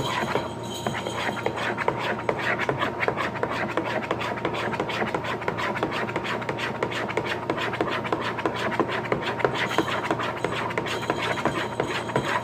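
Spoon stirring glue and shaving cream in a bowl to make slime: a steady run of quick scraping and clicking strokes.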